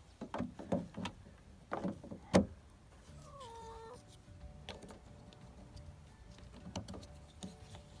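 Plastic and metal clicks and knocks of a car door-handle key lock cylinder being pushed into its handle, then the handle's end cap fitted on by hand; the sharpest click comes about two and a half seconds in. A faint short tone, falling in pitch, is heard in the background around the middle.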